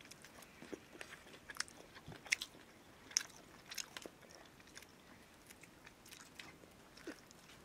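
Boiled maize kernels being thumbed off the cob and chewed: soft, irregular clicks and crunches, the sharpest a little past two seconds in and again just after three seconds.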